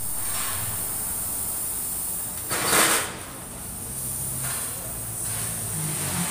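A short, loud burst of compressed-air hiss from a pneumatic tool on an air hose, about two and a half seconds in, lasting about half a second. Steady workshop hiss runs under it.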